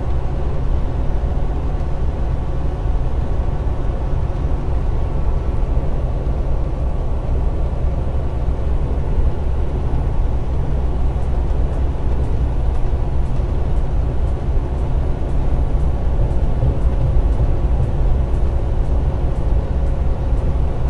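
Semi truck cruising on the highway, heard from inside the cab: a steady low drone of engine and road noise. About halfway through, a faint high ticking starts, about two ticks a second.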